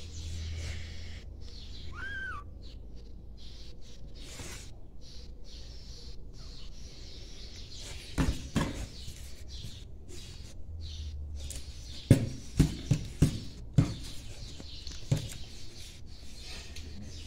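Hands handling a cardboard box and the towel inside it, with a pair of knocks about eight seconds in and a run of about five sharp knocks from twelve to fifteen seconds in. About two seconds in comes a single short high chirp that rises and falls.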